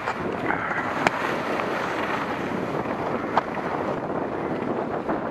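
Skis sliding and scraping over packed snow on a downhill run, with wind buffeting the microphone in a steady rush. Two sharp clicks stand out, about a second in and again past three seconds.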